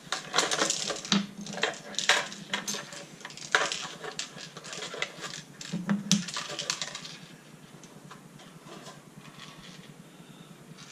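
Clicking and clattering of a Larc M19 BB machine gun's plastic housing and small metal parts as they are handled and set down on a work board during disassembly. It is busiest over the first seven seconds, with many sharp clicks, then turns quieter.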